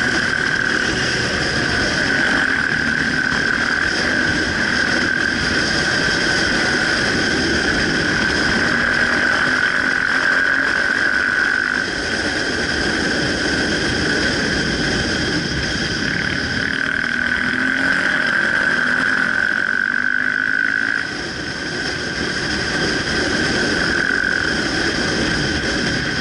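Motorcycle engine running at riding speed, its pitch gliding up and down with the throttle, under a loud steady high-pitched whine. The sound dips briefly about three-quarters of the way through.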